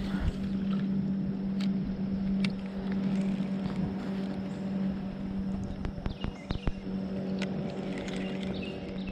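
A steady low motor hum, with a few sharp clicks and knocks from casting and handling a spinning rod and reel on a kayak, a cluster of knocks coming about six to seven seconds in.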